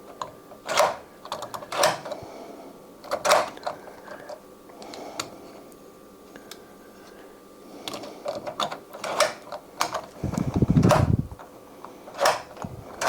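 Metal clicks and knocks of door-knob and deadbolt hardware being handled and fitted together. About ten seconds in, a short buzzing whir of a cordless driver.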